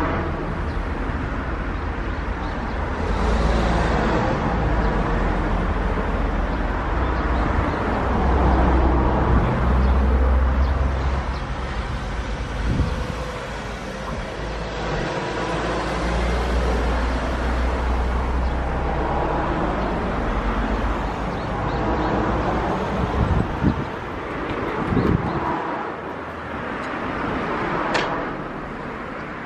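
Road traffic, with cars passing, as a continuous outdoor roar with a heavy low rumble underneath and a few short knocks.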